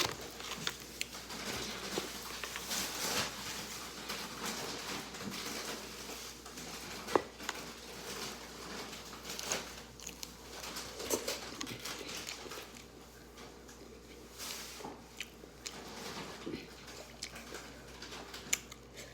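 Close-up eating sounds of someone biting into and chewing chicken wings, with many short irregular clicks and crunches.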